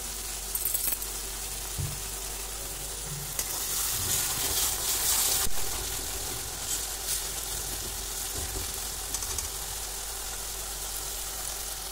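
Onion-tomato masala with a splash of water sizzling in oil in an iron kadhai, stirred with a metal perforated skimmer. The sizzle grows louder for a couple of seconds midway.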